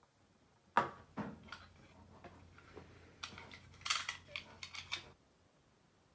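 Small hard parts being handled: a sharp click about a second in, then a string of clicks, taps and rattles that stops about five seconds in.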